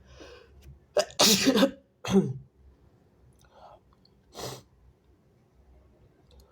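A man's wet sneeze: a faint intake of breath, then a loud explosive sneeze about a second in, cut by a second, shorter burst just after. A short, quieter breath follows a couple of seconds later.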